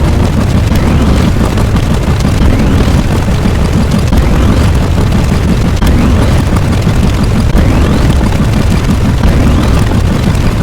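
Layered explosion sound effects: a continuous, loud, heavy rumble with short rising whistles every second or so.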